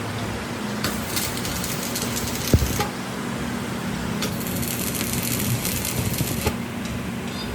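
A machine motor running steadily, with a sharp metallic knock about two and a half seconds in and a few lighter clicks.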